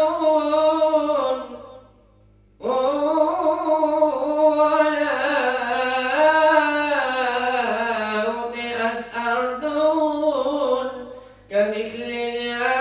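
A solo male voice sings an Islamic devotional tawshih in praise of the Prophet Muhammad. He draws each word out in long, ornamented melismatic phrases. A short pause comes about two seconds in, and a new phrase begins near the end.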